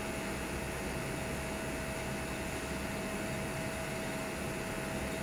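TIG welding arc on a flange joint of 104 mm sanitary pipe, giving a steady even hiss with a faint steady tone under it.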